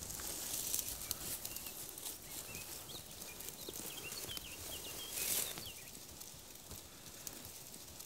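Grass and leaves rustling as hands work through dense vegetation, with a short louder swish about five seconds in. Faint bird chirps in the background.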